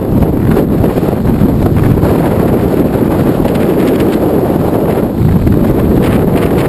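Loud, steady wind buffeting on the microphone from a mountain bike descending a paved road at about 39 mph.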